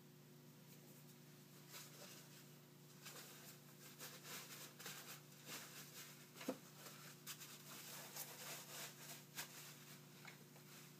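Faint rustling and light scraping of thick padded gloves handling small tools in a tool case, with one sharper click about six and a half seconds in, over a steady low hum.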